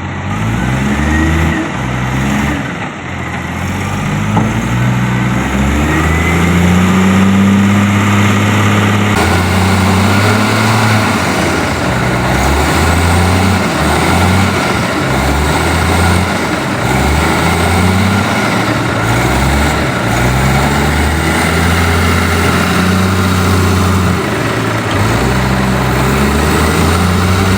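Heavy diesel machinery engine working, its pitch repeatedly rising and falling as it revs under load.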